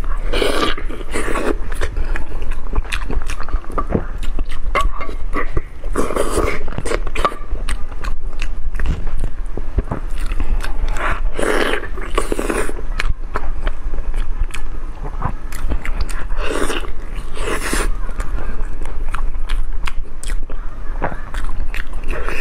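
A person eating close to the microphone: biting and chewing, with many small sharp clicks and wet smacks and a few longer noisy bursts, over a low steady hum.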